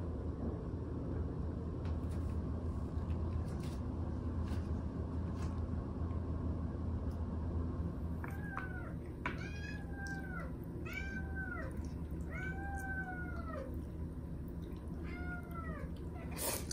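A cat meowing, about six short calls in the second half, each rising then falling in pitch, over a steady low hum. A brief noise comes near the end.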